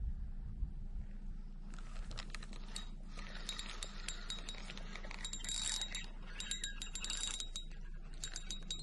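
Fishing tackle handled close by: rapid, irregular metallic clicking and jingling with a light ringing to it, starting about two seconds in.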